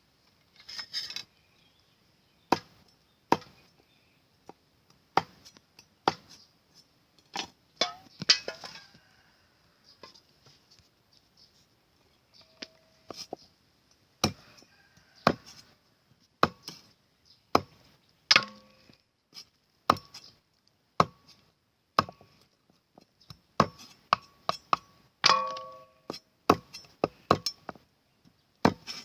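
Knife chopping on a cutting board, single sharp strikes about a second apart that come faster near the end.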